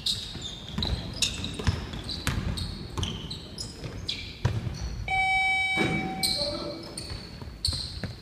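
Basketball game sounds in an echoing gym: a ball bouncing on the hardwood and sneakers squeaking. A steady electronic tone sounds for just under a second, about five seconds in.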